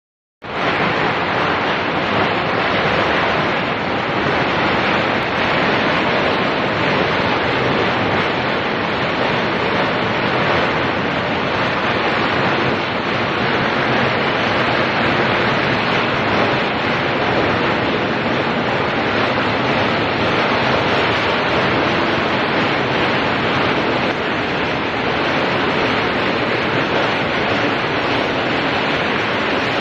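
Steady, loud rushing noise of a foundry floor around an induction melting furnace, without distinct tones or knocks, starting abruptly about half a second in.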